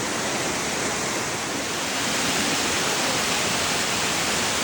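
Amicalola Falls waterfall: falling water rushing steadily, a dense, even hiss, a little louder about two seconds in.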